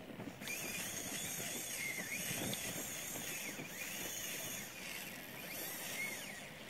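Fishing reel drag running as a hooked fish pulls line off a light bait-jig rig. It starts about half a second in and holds steady, its pitch rising and falling.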